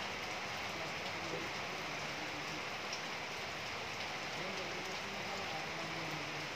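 Steady, even background hiss with no distinct events, of a kind like rain or fan noise.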